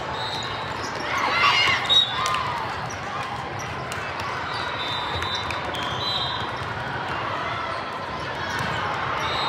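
Busy volleyball hall: constant crowd chatter with balls being hit on the courts. There is a loud burst of shouting about a second and a half in. Referee whistle blasts sound around the hall, one about two seconds in and more around five to six seconds.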